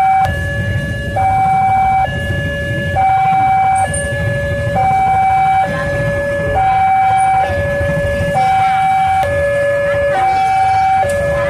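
Railway level-crossing alarm sounding a two-tone hi-lo pattern, switching between a higher and a lower tone a little under once a second, over a low rumble.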